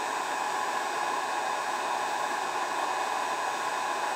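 Electric heat gun running on high heat, its fan blowing a steady hiss of hot air onto polyethylene tarp plastic that has melted to a goopy state.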